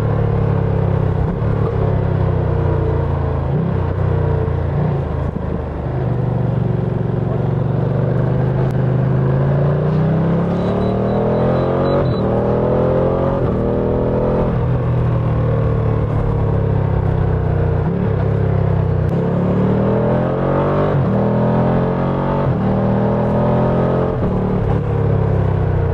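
Ducati Panigale V2's 955 cc L-twin engine on its stock exhaust, pulling up through the gears several times: the pitch climbs, drops at each shift and climbs again, then falls away as the throttle eases off between pulls.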